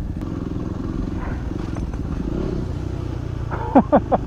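Single-cylinder 250 cc Yamaha dual-sport motorcycle engine running steadily while riding slowly. Near the end there is a quick run of four short squeaks, each falling in pitch.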